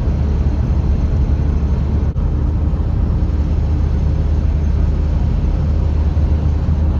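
Steady in-cabin drone of a Skoda Octavia 1.9 TDI diesel cruising at highway speed: engine and road noise with a strong low rumble underneath.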